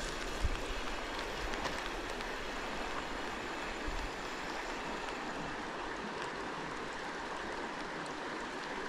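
River water running steadily, an even rushing hiss, with a brief low thump about half a second in.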